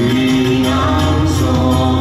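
Live band music in a concert hall: a held sung note over sustained keyboards and a low bass that comes in about two-thirds of a second in.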